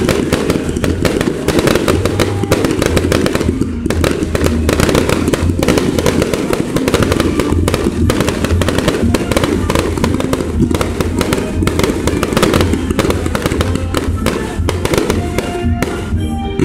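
Aerial fireworks bursting in quick succession: a dense, continuous crackling of many small reports over a low rumble.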